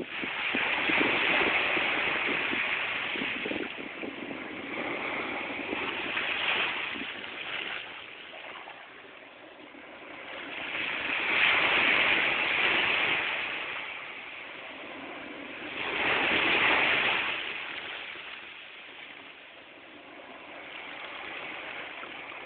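Small sea waves breaking on a sandy beach and washing up the shore, the hiss swelling and fading with each wave. The loudest waves come near the start, about halfway through and again a little later.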